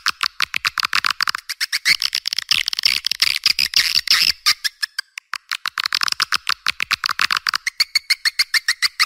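Recorded chorus of edible-nest swiftlets twittering in rapid, dense chirps, many a second, with brief lulls: a swiftlet lure call played outdoors to draw flocks into a swiftlet nest house.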